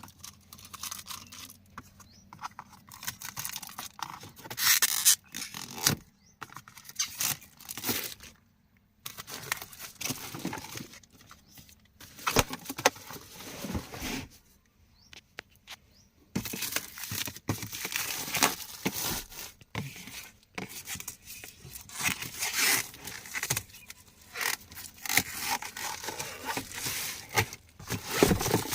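Drill-machine packaging being handled and opened by hand: irregular tearing, scraping and crinkling in short bursts, with brief pauses between.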